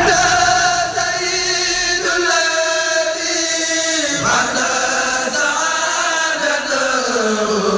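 Group of voices chanting a Mouride religious poem (khassida) in Arabic, singing long drawn-out notes that shift about four seconds in and slide downward toward the end.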